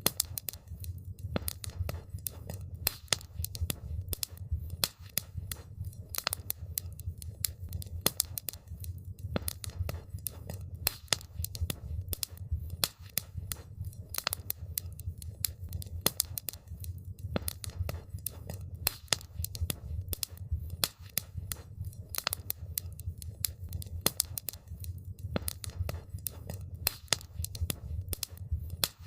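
Wood campfire burning, with dense, irregular crackles and pops over a steady low rumble of flame.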